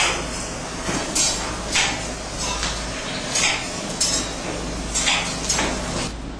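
Irregular metallic clanks and knocks, about ten of them, one every half second to second, over a steady low hum.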